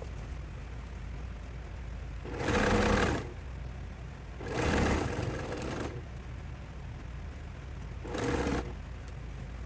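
Domestic sewing machine stitching pieced quilt rows together in three short runs of a second or so each, starting about two and a half, four and a half and eight seconds in, with a low steady hum between runs. The footage is sped up.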